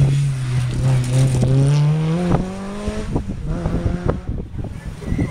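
Rally car passing close at speed, its engine note climbing about two seconds in as it accelerates away, then fading as it heads off down the stage.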